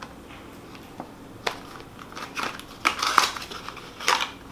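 A small cardboard vial box being opened by hand, its flaps and packaging crinkling and scraping in several short crackles, a few of them close together in the middle and one more near the end.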